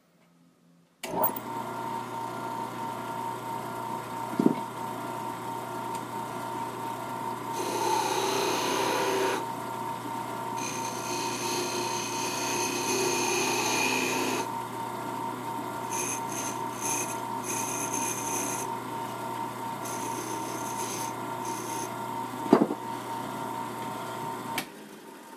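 Small lathe switched on, its motor humming steadily while a rosewood bead piece with silver wire inlay spins, with stretches of rubbing hiss as a hand works the turning wood; two sharp clicks come about four seconds in and near the end, and the motor stops shortly before the end.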